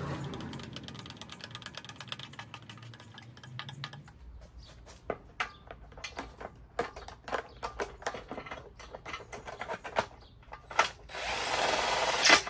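Plastic blower housing of a Briggs & Stratton engine clicking and knocking as it is fitted into place, then a power drill-driver whirring as it runs in a fastening bolt about eleven seconds in.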